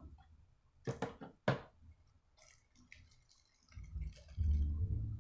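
Small hand-tool clicks and ticks as tiny screws are handled and fitted: two sharp clicks about a second in, then faint light ticking. A low steady hum comes in near the end.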